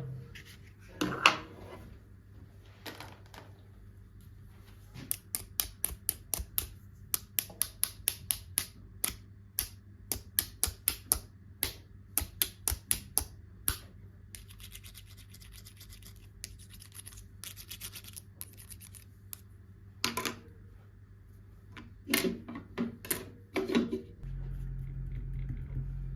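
Handling of small toys: a quick run of sharp clicks and taps, about two or three a second, then softer rubbing and scratching and a few louder knocks. A steady low hum starts near the end.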